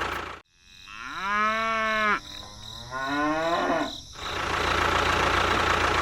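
Cow mooing: one long call that rises and holds, then a second call that falls away in pitch. The steady motor noise drops out about half a second in, leaving the moo alone, and comes back after about four seconds.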